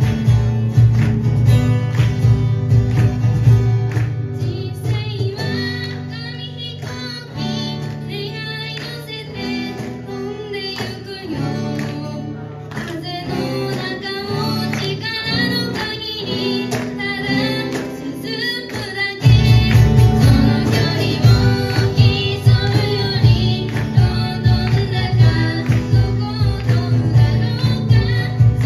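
Live acoustic band: two acoustic guitars and a cajon accompanying a young female singer. About five seconds in, the accompaniment drops to a lighter, quieter part under the voice, then comes back full and louder at about nineteen seconds.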